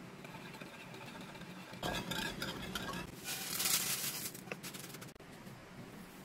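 A wire whisk clinks against a ceramic bowl of sauce. About three seconds in, crisp toasted pita pieces are scraped from a frying pan with a spatula and slide rattling into a glass dish, the loudest part, ending with a click.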